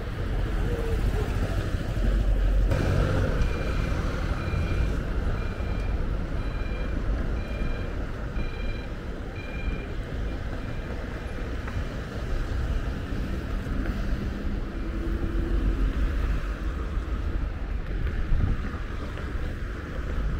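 Outdoor street ambience: steady low traffic rumble with wind buffeting the microphone. A few seconds in, an electronic beep repeats about eight times over some five seconds, like a vehicle's warning beeper or a signal.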